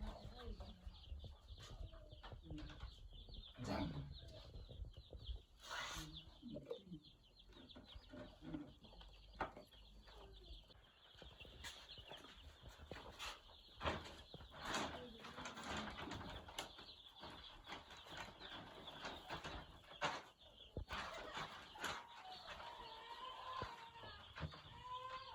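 A brood of day-old broiler chicks cheeping continuously in a dense high chorus, with scattered knocks and rustles from handling.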